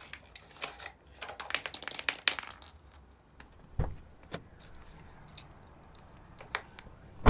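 Hands handling paper and plastic toy packaging: a rapid run of crinkles and small clicks for the first couple of seconds, then a few scattered knocks and clicks as a red plastic capsule ball is gripped and twisted. It ends in a loud snap as the capsule's two halves pop apart.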